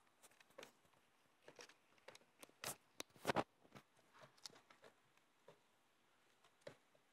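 Faint, scattered scratching, rustling and light knocks of two British shorthair kittens tussling inside a carpeted cat-tree condo, claws catching on the carpet. The loudest cluster of knocks comes a little past three seconds in.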